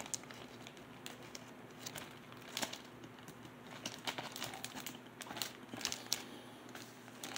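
Faint, irregular crinkling of a vinyl LP's clear plastic protective sleeve as the record is handled and pulled aside.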